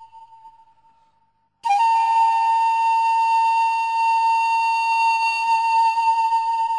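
A loud, steady whistle-like tone held at a single pitch. It fades away at first, and after a brief silence it cuts back in suddenly at the same pitch about a second and a half in, then holds steady.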